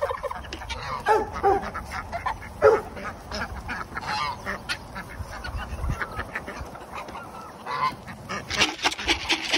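Geese and ducks calling among a mixed farmyard flock, with a run of calls in the first few seconds and more near the end. Many short clicks and a low rumble run underneath.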